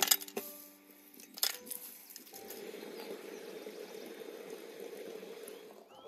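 Two sharp clinks in the first second and a half, then hot water running steadily from a samovar's tap into a glass teapot.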